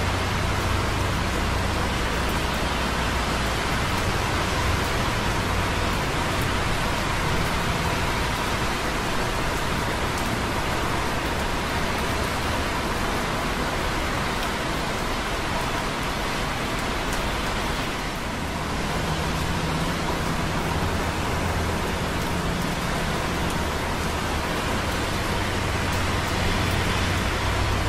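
Light rain dripping on concrete close by, over a steady hiss of busy traffic on wet roads far below. A low traffic rumble swells and fades as vehicles pass.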